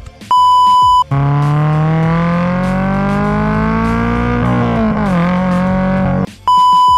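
2023 Toyota GR86's flat-four engine through an AWE Track cat-back exhaust, heard close to the tailpipe while accelerating: the note climbs steadily, falls off about four and a half seconds in, then holds before cutting off. A short electronic beep sounds just before the engine and another near the end.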